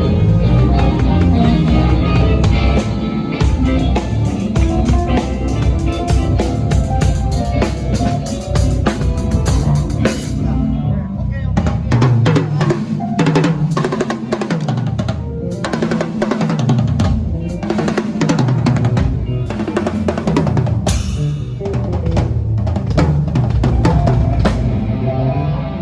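A live rock band playing during a sound check, with the drum kit played hard and to the fore over bass and guitar. The drums come in strongly about three seconds in.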